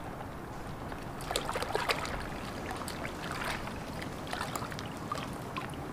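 Water splashing and sloshing in several short bouts, with small clicks, over a steady low rumble.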